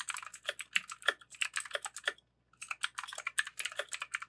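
Fast typing on a Pictek PC335A 60% mechanical keyboard with clicky Otemu blue switches in a hollow plastic case: a rapid run of sharp key clicks, a short pause a little past two seconds in, then the typing resumes.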